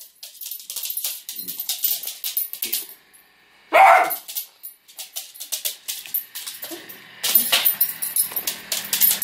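A beagle barks once, about four seconds in, at raccoons outside a glass door, amid quick clicking and scratching sounds.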